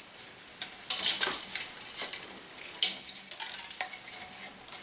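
Tennis string being pulled through a racquet frame's grommet holes: hissing rubs of string sliding, mainly about a second in and again near three seconds, with a few light clicks.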